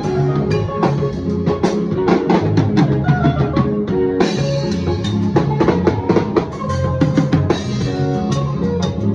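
Live band music led by a drum kit: many quick drum and cymbal hits over sustained bass notes and chords.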